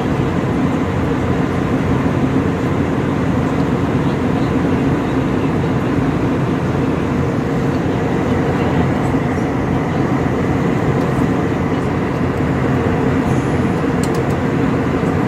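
Steady cabin drone of an airliner in flight: engine noise and rushing air, with faint steady tones over it.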